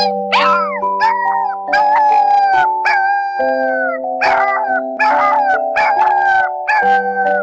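Background music of held chords, with a short howl-like cry laid over it about once a second.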